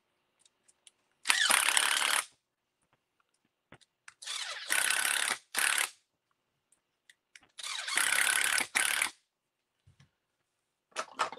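Cordless electric screwdriver driving small screws into an RC buggy's rear gearbox cover, in three runs of about a second each with small clicks between them.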